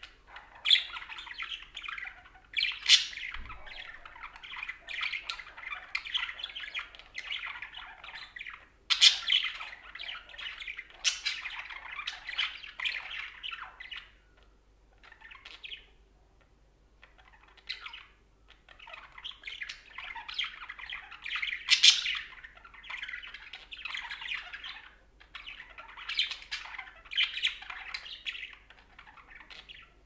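Budgerigar chattering: a continuous warbling stream of quick notes, broken by sharp, louder chirps every few seconds, with a pause of a few seconds about halfway through.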